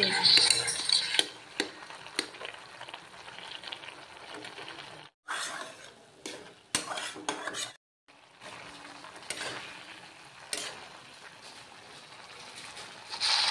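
Flat metal spatula stirring and scraping a wet banana-stem and mustard-paste mash in a kadai, with scattered clicks of metal on the pan over a low sizzle. The sound cuts out briefly twice, about five and eight seconds in.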